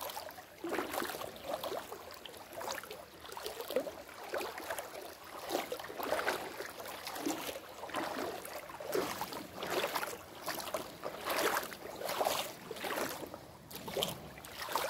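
Wading footsteps in a shallow creek: water sloshing and splashing with each step, about one step a second.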